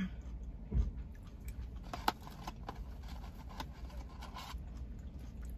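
Handling of a plastic dipping-sauce cup and food packaging: a dull thump, then several light clicks and taps with a faint rustle, over a low steady hum.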